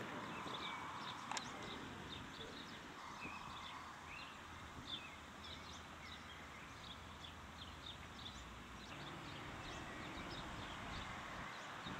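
Small birds chirping and twittering over a steady hiss of outdoor background noise, with one sharp click about a second in.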